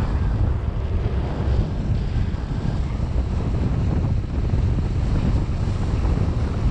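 Wind buffeting the microphone: a steady, low rumble of noise without a break.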